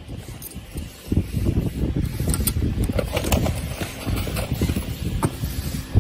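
A steady low rumble, with a few light clicks and clinks of small metal bolts and washers being handled, mostly in the middle of the stretch.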